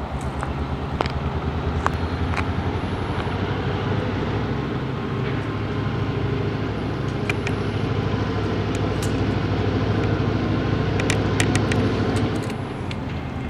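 The locomotive of an approaching train running under power with a steady low engine rumble, which grows a little louder and then eases off shortly before the end. A few sharp clicks are heard along the way.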